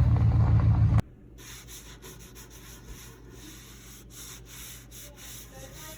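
A loud low vehicle rumble that cuts off sharply about a second in. It gives way to a faint rasping, rubbing hiss broken by short pauses every half second to a second.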